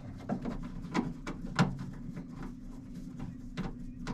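A screwdriver backing a screw out of a range hood's blower mount, giving irregular small clicks and metal taps a few times a second over a steady low hum.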